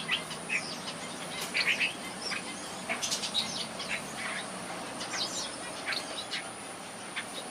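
Red-whiskered bulbuls calling, with quick bright chirps and short song phrases coming in irregular, overlapping bursts. A steady high-pitched tone runs underneath.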